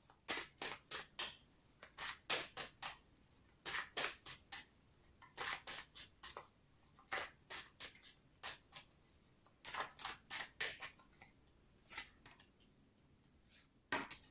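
Tarot deck being shuffled by hand, overhand: quick runs of three to five crisp card slaps, repeating every second or two.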